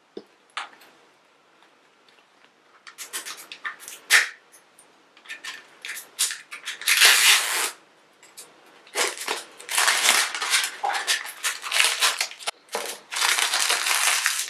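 Plastic blind-bag wrapper crinkling as it is handled and opened by hand, in irregular crackles that come thicker and more continuous in the second half.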